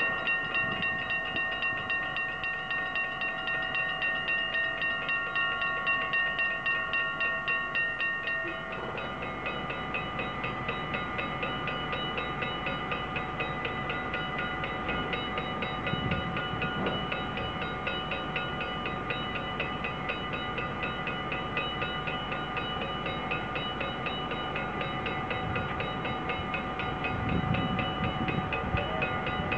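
Level-crossing bells, mostly old mechanical strikers, ringing rapidly and evenly, several bells of different pitch overlapping. About eight and a half seconds in, some of the tones drop out and the rest keep ringing. Near the end a low rumble builds, as of a train coming.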